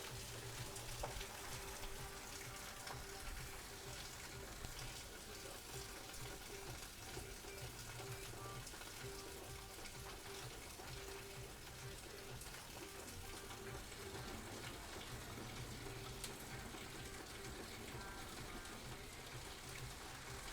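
Samsung WD136 front-load washer-dryer running its cycle: a faint, steady watery hiss with a low hum that comes and goes.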